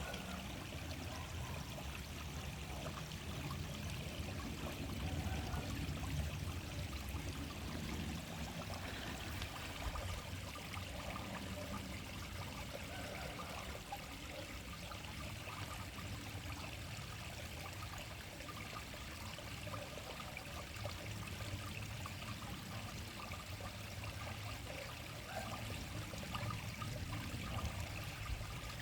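Small clear stream flowing steadily, its water trickling and babbling.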